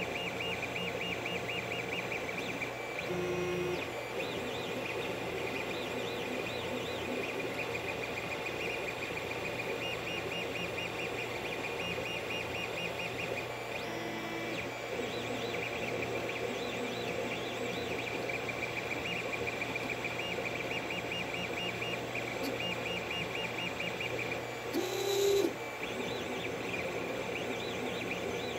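Creality CR-10 3D printer running a print: the stepper motors whine and chirp in quick, repeating pitch patterns over the steady hum of the printer's fans, with a short louder burst near the end.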